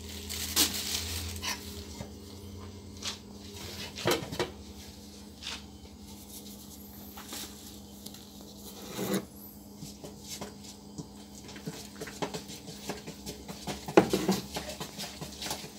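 Stainless steel mixing bowl in a steel sink knocking and scraping irregularly as bread dough is mixed in it by hand, the loudest knock about fourteen seconds in. A steady low hum runs underneath.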